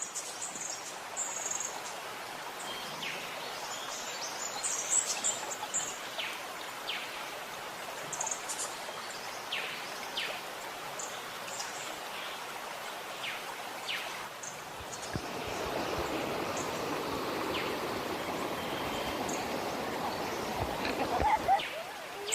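Flowing water rushing steadily, louder from about fifteen seconds in, with many short, high bird chirps throughout.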